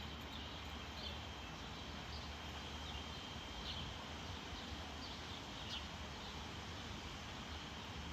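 Faint, short high chirps repeating irregularly about once a second, over a steady outdoor background with a thin, steady high-pitched tone.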